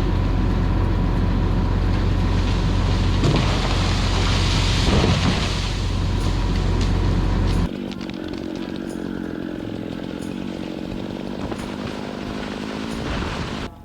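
Chainsaw running at high throttle, cutting into a tree. About eight seconds in, the sound drops abruptly to a quieter, steady running level.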